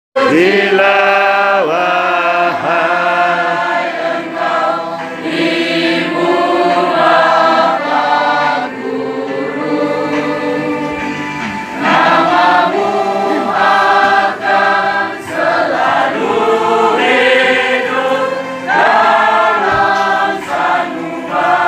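A choir singing, voices holding long notes in several parts.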